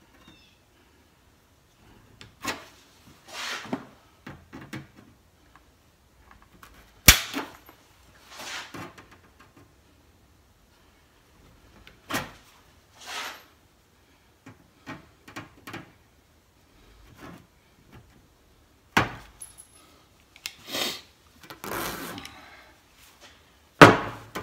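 Aviation snips cutting thin sheet steel: a handful of sharp snaps, spread several seconds apart, as the blades close through the metal, with softer rustling and handling between. Near the end the snips are set down on the wooden bench with a loud clack.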